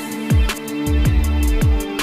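Electronic background music with deep bass hits that drop in pitch on each beat, a steady ticking hi-hat and held synth tones.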